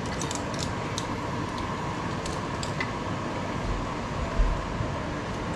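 Steady fan-like background hum, with faint small clicks and a few soft knocks about four seconds in as a hand-held string hopper press is squeezed over the mats.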